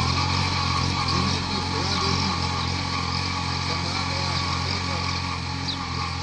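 Compact tractor's engine running steadily under load as it pulls a cultivator between crop rows, fading slightly as it moves away.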